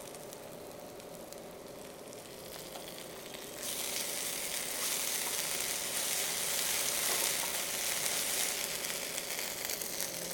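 Chopped shallots, green chillies and whole spices sizzling in hot oil in a frying pan. About three and a half seconds in the sizzle grows louder and hissier as ginger-garlic paste goes into the oil.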